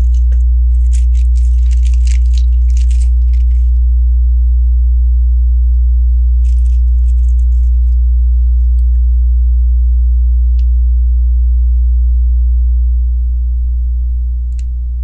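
A loud, steady low electrical hum, with light clicks and rustles of plastic Lego pieces being handled in the first three seconds and again around six to seven seconds. The hum eases slightly near the end.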